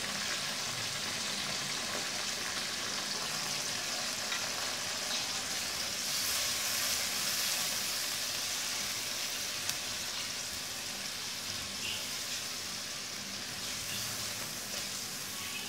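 Green chillies sizzling in hot oil in a nonstick pan, a steady frying hiss that swells a little in the middle, while a wooden spatula stirs them with freshly added spices.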